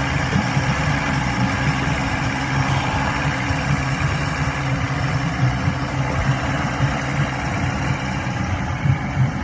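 Chrysler 90 HP two-stroke outboard motor running steadily at a fast idle, still cold just after starting.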